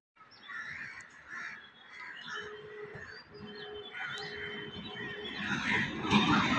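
Birds calling repeatedly in short bursts, with a low steady tone sounding three times in the middle. Near the end the rumble of an approaching EMU local train swells.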